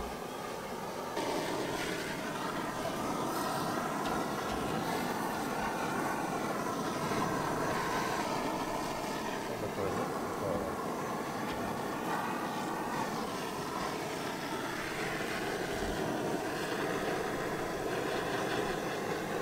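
An engine running steadily, getting louder about a second in, its pitch drifting slowly up and down.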